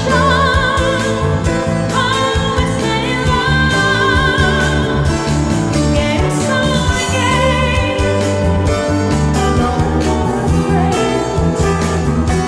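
A woman singing a slow lounge song with vibrato on held notes, over a keyboard and backing accompaniment with a steady bass line.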